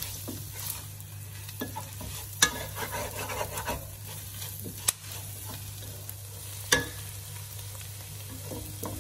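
Wooden spatula stirring onion and curry-leaf masala frying in a pot, with a soft sizzle and scraping over a steady low hum. Three sharp knocks of the spatula against the pot come about two and a half, five and seven seconds in.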